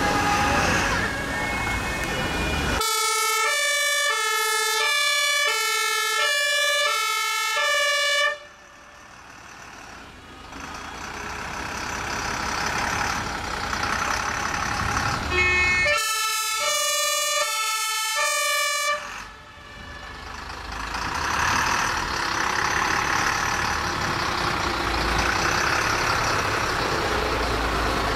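A fire engine's two-tone horn (Martinshorn) sounds twice, alternating between a high and a low note: a blast of about five seconds a few seconds in, and a shorter one of about three seconds midway. Between the blasts and after them, the diesel engines of fire trucks run as the trucks drive past.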